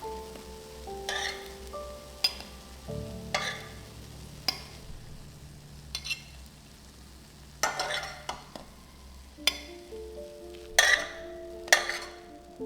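A utensil stirring and scraping food in a pan on the heat: about ten sharp strokes against the pan at uneven intervals, with light frying sizzle between them. Soft background music with held notes plays underneath.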